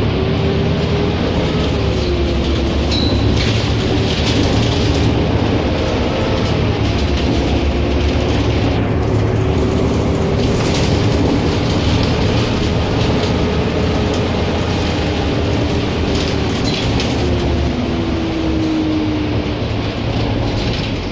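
Volvo Olympian double-decker bus's diesel engine and drivetrain heard from inside the lower deck while the bus is driving: a steady rumble with a whine that drifts slowly in pitch and falls near the end, over road noise and light rattles from the body.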